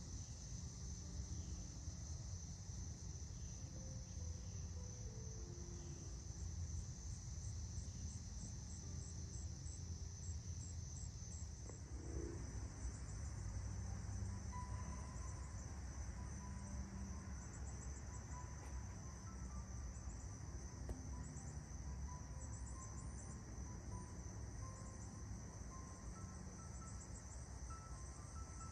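Insects trilling steadily at a high pitch, with a low rumble underneath.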